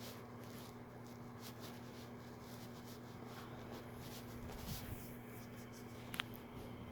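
Faint gurgling from an upset stomach (bubble guts), with scratchy rubbing sounds over a steady low hum; a sharp click about six seconds in.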